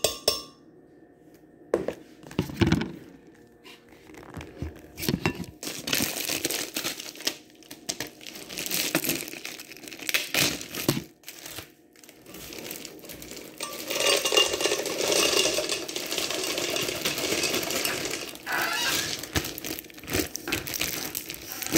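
Scattered clicks and knocks as a plastic yogurt tub and other kitchen things are handled, then a plastic zip-top bag crinkling for several seconds in the second half.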